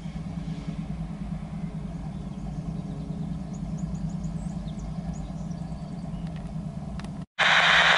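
An engine idling with a steady low hum. About a second before the end the sound drops out briefly, then gives way to a much louder, steady rushing noise.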